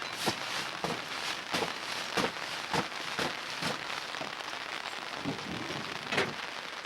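Steady hiss of falling sleet and rain, with sharp irregular taps and crackles about twice a second that thin out after about four seconds.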